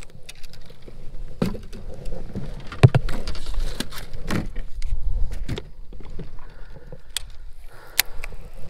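Fishing gear knocking and rattling against a plastic kayak as a rubber-mesh landing net and a rod are handled: a string of sharp knocks and clicks over a low rumble.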